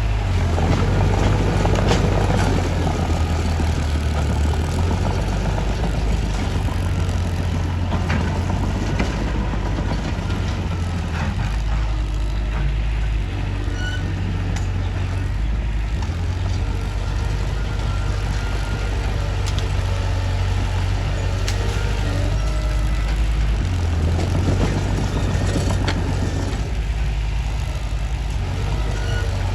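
Mitsubishi bulldozer's diesel engine running steadily with a deep note that shifts several times as the load changes while it works soil, with a few faint knocks over it.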